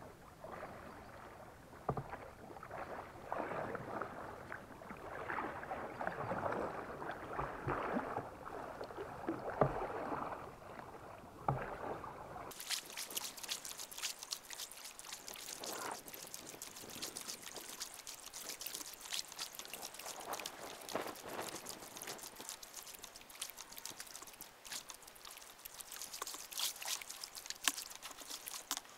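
Kayak paddling on a calm river: irregular paddle strokes, splashing and water dripping off the blades. The sound is dull and muffled at first, then turns bright and crackly with many small drips and splashes after a sudden change about twelve seconds in.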